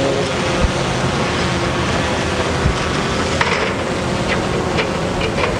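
Metal extension ladder knocking and clicking as it is carried and handled, with a couple of dull thumps and then a run of light sharp clicks in the second half, over a steady rushing background noise.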